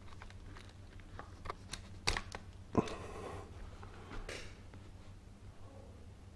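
Scattered clicks and light clatter from handling the BSA Scorpion SE .22 PCP air rifle, the two sharpest about two seconds in and just under three seconds in, over a low steady hum.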